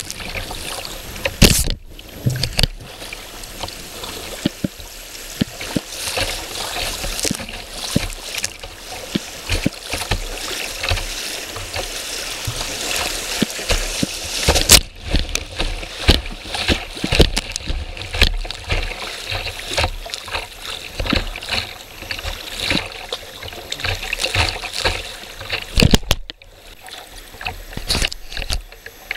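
Class II whitewater rapids rushing around a kayak, heard close to the water, with many sharp splashes of water hitting the boat and the camera. The sound drops out briefly twice, about two seconds in and near the end.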